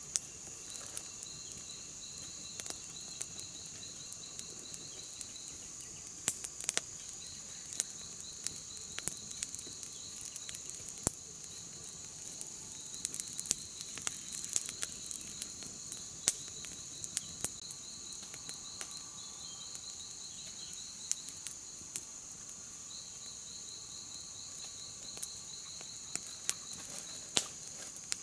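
Crickets or similar insects trilling: one high continuous trill, with a second, pulsing trill starting and stopping in runs of several seconds. Scattered sharp clicks and crackles sound throughout.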